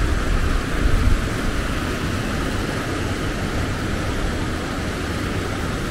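Steady rushing of the Black Water river tumbling over rocks, under a strong low rumble.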